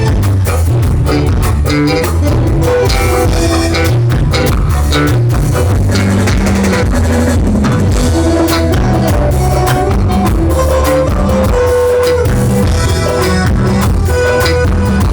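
A live band playing loud instrumental music, with guitar, bass and drum kit keeping a steady beat.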